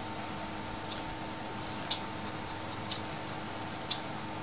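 Regular ticking, one short tick about every second, over a steady faint hum and room hiss.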